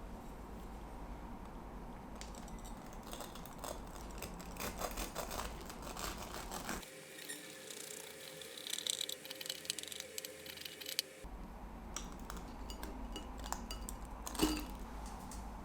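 Light clicks, taps and clatter of small objects being handled, with brief scattered knocks.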